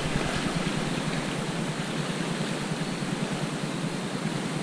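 Steady rushing of sea water beside a concrete pier, with no distinct splashes or knocks.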